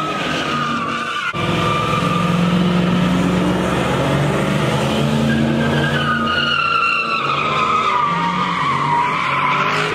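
Cars doing donuts: engines held at high revs and tires squealing in long, wavering screeches that slowly fall in pitch, broken by an abrupt cut about a second in.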